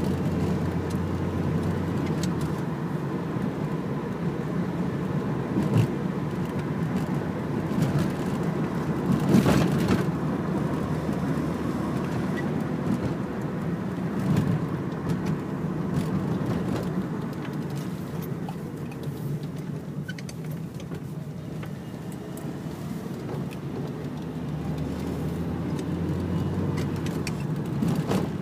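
Dacia car heard from inside the cabin while driving: a steady drone of engine and road noise, with a short louder swell about nine seconds in.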